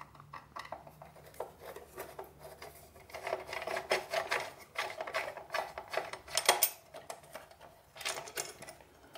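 A screwdriver turning out a screw that holds the power-supply block inside a boombox chassis: a run of light, irregular clicks and scraping, with a sharper click about six and a half seconds in.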